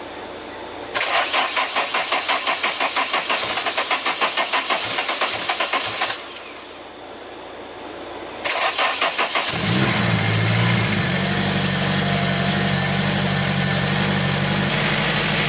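Turbocharged Honda S2000 four-cylinder engine being started on E85 after new fuel injector seals: the starter cranks rhythmically for about five seconds without it firing, stops, cranks again, and the engine catches near the end and settles into a steady idle.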